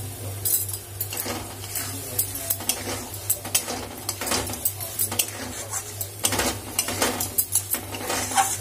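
Steel spatula scraping and clinking against a metal kadai as crumbled paneer bhurji is stirred and turned, in quick irregular strokes, over a steady low hum.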